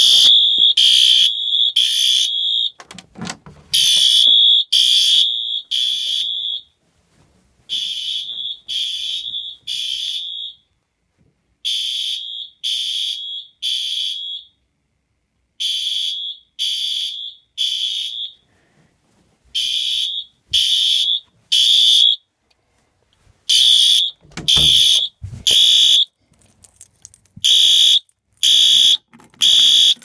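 Fire alarm horn sounding in the temporal-three pattern: groups of three high-pitched beeps, each group followed by a short pause, repeating steadily. This is the standard evacuation signal. A few low thumps from handling come a few seconds in and again near the end.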